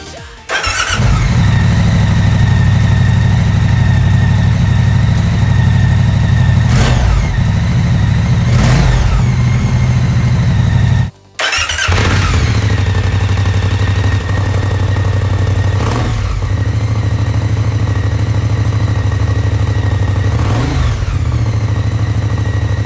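Moto Guzzi V100 Mandello S's transverse V-twin idling with a deep, steady exhaust note and a handful of short throttle blips. The sound breaks off briefly near the start and again about eleven seconds in, then the idle resumes.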